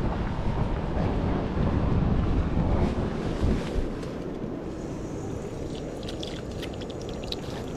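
Wind buffeting the microphone in gusts, with a few faint light clicks in the second half.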